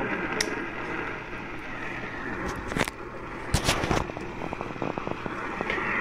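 AM radio tuned to 820 kHz giving out static: a steady hiss broken by sharp crackles and pops, the loudest about halfway through, then a run of small rapid clicks near the end.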